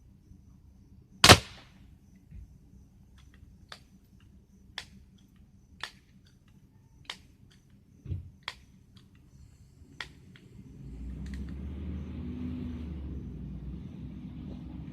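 .22 calibre air pistol firing once, a sharp crack about a second in, followed by a string of lighter clicks roughly a second apart. From about eleven seconds a steady low rumble of a vehicle comes in.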